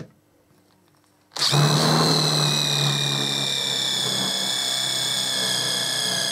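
Cordless impact driver spinning an 8 mm multi-material masonry-style drill bit into a softwood stud. After about a second of quiet it starts suddenly and runs as a steady whine whose pitch slowly sinks as the bit bores in.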